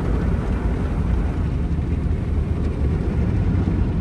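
Automatic car wash machinery working over the car, heard from inside the cabin: a steady low rumble with foam and water on the windshield.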